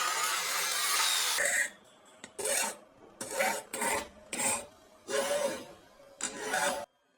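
Abrasive scraping: a continuous scrape for about the first second and a half, then six separate strokes with short quiet gaps between them, stopping abruptly near the end.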